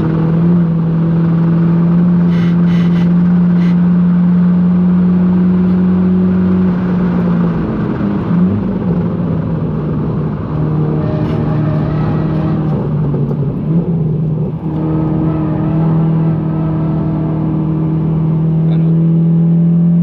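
GTI hatchback's engine pulling hard, heard from inside the car at speed over road and tyre noise. It holds a steady note for several seconds at a time, with breaks about seven and eight and a half seconds in and a short sharp dip near fifteen seconds, as the driver shifts or lifts.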